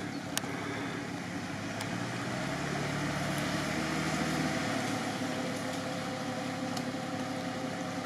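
Off-road vehicle engine idling steadily, its low note swelling a little for a couple of seconds in the middle.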